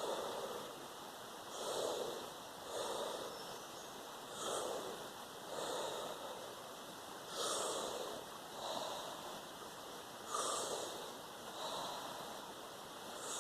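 A person doing a deep breathing exercise, breathing in and out forcefully in a steady rhythm, one full breath about every three seconds.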